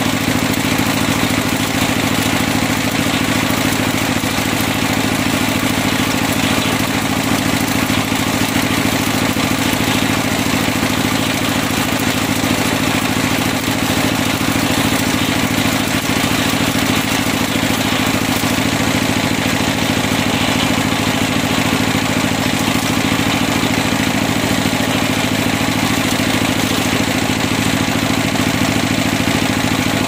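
Engine-driven circular sawmill running with its large blade spinning free, no wood in the cut: a steady, unchanging engine sound with the whir of the blade.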